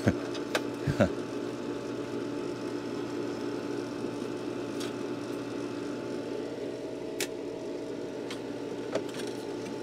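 Steady hum of the pool pump's electric motor running, with a few light clicks of a screwdriver working on the heater's metal panel.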